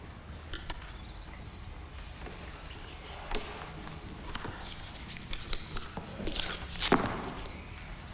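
Quiet classroom room tone with scattered small clicks, knocks and rustles of children shifting at their desks. About six to seven seconds in there is a louder scraping noise ending in a sharp knock.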